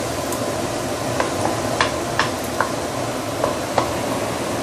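Minced garlic sizzling in hot oil in a stainless-steel wok, with a wooden spatula clicking and scraping against the pan about every half second to second as it is stirred.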